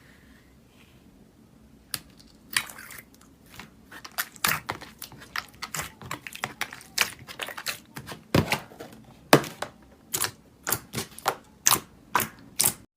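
Slime being squeezed and pressed by hand, giving a rapid, irregular run of sharp crackling pops and clicks after about two quiet seconds.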